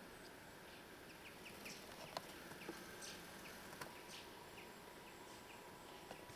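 Near silence, with faint scattered short bird chirps and a few soft clicks.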